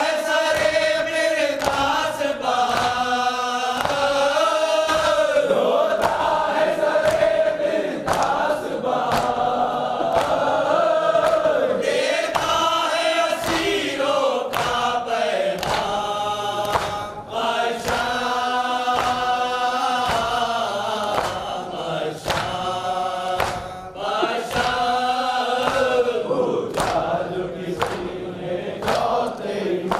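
Men chanting a noha, a Shia lament, in chorus, led by a reciter at a microphone. Hands striking chests (matam) keep a steady beat under the chant.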